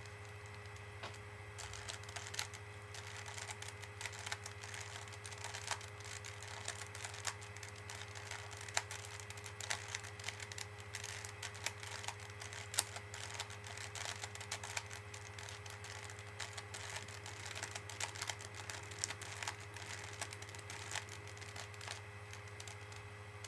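Rubik's cube layers being turned rapidly by hand: a fast, irregular run of light plastic clicks and rattles. A steady low mains hum lies underneath.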